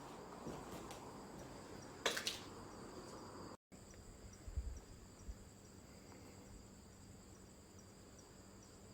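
Faint insects, most likely crickets, chirping steadily in high pulses a few times a second. A sharp click sounds about two seconds in, a few low thuds come near the middle, and the sound cuts out for a split second.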